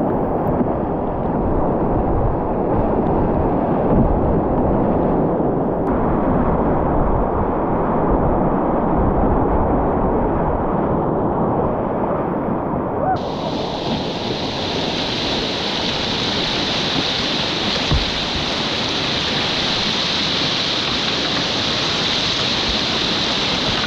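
Whitewater river rapids rushing and splashing around a kayak, heard close from the boat. The rush is muffled for roughly the first half, then turns brighter and hissier about halfway through.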